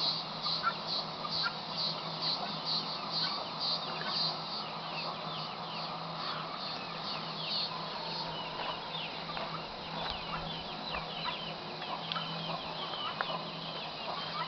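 Farmyard birds: a high note repeats about twice a second for the first several seconds. From about eight seconds in, many short falling chirps take over. Chickens cluck and a faint steady hum runs underneath.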